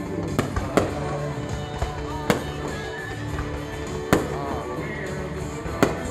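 Aerial fireworks going off: five sharp bangs spread over a few seconds, the loudest about four seconds in, over steady background music.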